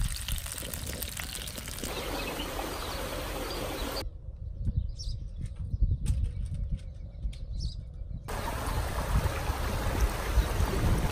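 Wind buffeting an outdoor microphone: an unsteady low rumble under a steady hiss. The hiss drops out abruptly for about four seconds in the middle, leaving the rumble and a few soft knocks.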